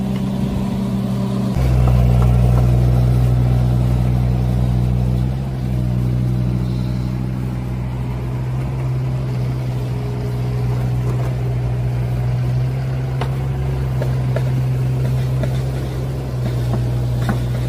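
Compact construction machines, a mini excavator and a tracked mini loader, with their engines running steadily as they dig and move dirt. The engine note steps up about a second and a half in.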